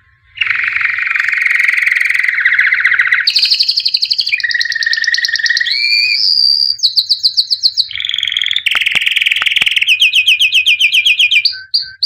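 Songbird singing loudly, starting about half a second in: a long run of trills, each a fast string of repeated notes, switching to a new phrase every second or two.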